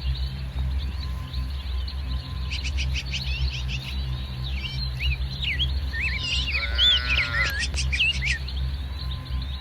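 Small birds chirping busily, with a brief high-pitched bleat from a farm animal about seven seconds in, over a steady low rumble.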